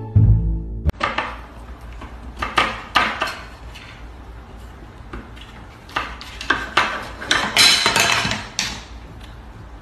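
A spoon pushed through two cabinet-door handles as a makeshift lock, rattling and clacking against the handles as a cat paws and tugs at the doors. The clatter comes in uneven bursts and is busiest in the second half.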